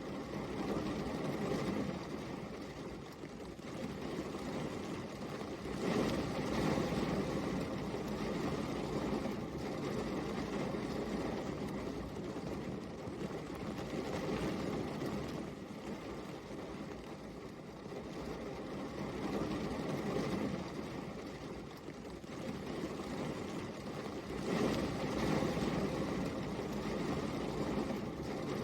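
Steady rain falling, an even rushing hiss that swells and eases every few seconds.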